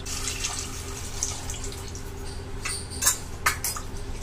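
Water poured into fried spice paste in a nonstick pan, splashing, then a few sharp knocks of a wooden spatula against the pan as the thinned gravy is stirred, about three seconds in.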